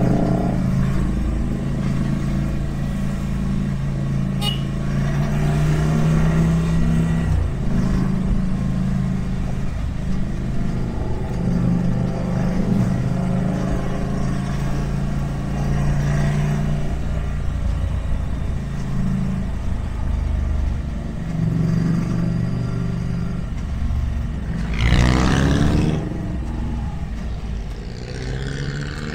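Ducati Monster 797+ air-cooled L-twin engine running under way, its note steady with small rises and falls in load and a short break about seven seconds in. About 25 seconds in there is a brief louder sweep, rising then falling.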